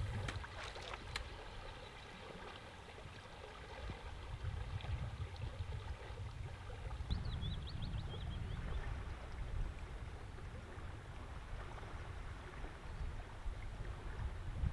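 Riverbank ambience: an uneven, low rumble of flowing river water. A few faint high chirps come about seven seconds in.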